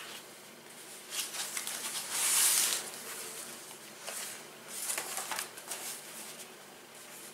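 Magazine paper rustling and flapping as the open magazine is picked up and handled, in several short swishes, the loudest about two and a half seconds in.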